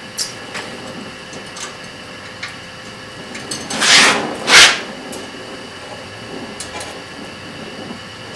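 Tack-welding a bushing: a steady hiss with a few faint clicks, then two loud short rushes of noise about four seconds in.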